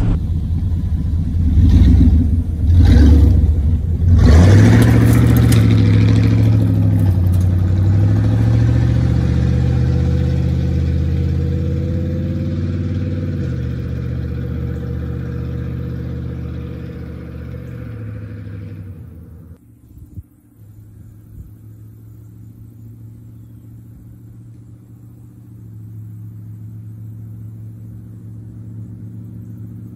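A 5.7 V8 running through open, muffler-deleted true-dual exhaust: several hard revs under acceleration in the first few seconds, then steady running that slowly fades. After a sudden drop, a quieter low rumble carries on.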